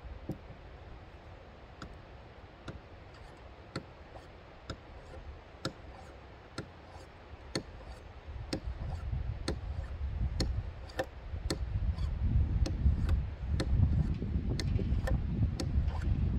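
Short, sharp ticks, about one a second at first and closer to two a second later, made by hands working at the front end of a flintlock pistol. Wind rumbles on the microphone from about eight seconds in.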